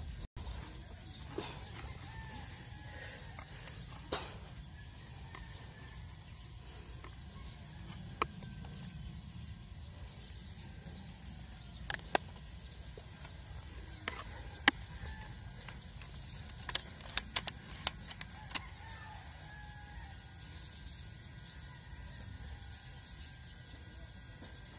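A rooster crowing faintly in the distance over a steady low rumble of wind and handling noise, with scattered sharp clicks and knocks, the loudest coming in a cluster past the middle.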